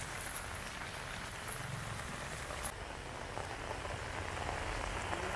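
Steady rain falling, an even hiss with no distinct strokes. The hiss turns duller about halfway through.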